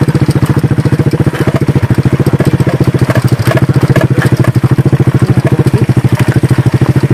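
Motorcycle engine running steadily at low speed, close up, its exhaust pulses coming fast and even, with a few brief rattles as the bike rides a rough dirt track.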